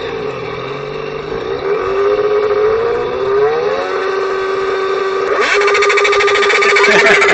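A man imitating a motorcycle engine with his voice: the pitch slides up and down like revving, then holds one steady note, with a buzzy rattle joining in about five and a half seconds in.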